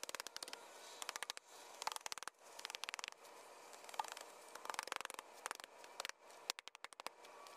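Wooden board tapped and pressed onto cardboard over wet clay dirt to pack it down: irregular bursts of quick sharp clicks and scrapes, about one burst a second.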